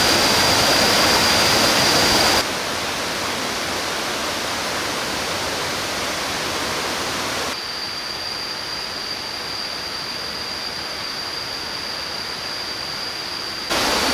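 Tad Sae waterfall's rushing water, a steady dense roar whose level steps down abruptly twice and comes back up near the end. A steady high-pitched whine runs over it at the start and again in the second half.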